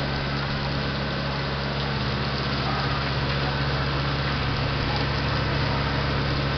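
Fire truck engine running steadily as it pumps water to a hose, with an even hiss of water spray over it.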